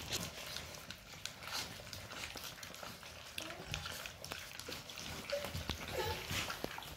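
A litter of young puppies moving about and mouthing at things, making scattered small clicks and smacks. A few brief high whimpers come a little past the middle.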